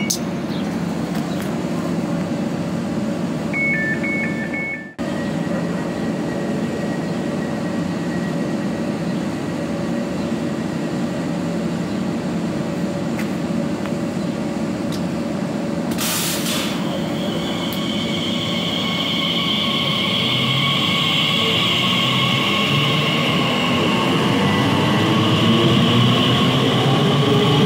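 Class 345 electric train standing at the platform with a steady electrical hum. There are two short high beeps about four seconds in and a sharp thud at about sixteen seconds. From about twenty seconds the traction motors whine in several rising tones as the train starts to pull away.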